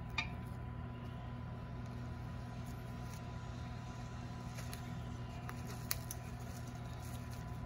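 Steady low background hum with a thin steady high tone, and a couple of faint clicks.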